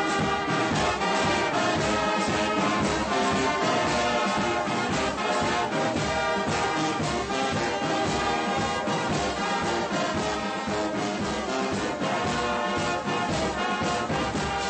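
Brass band playing with drums, a steady beat under sustained brass chords.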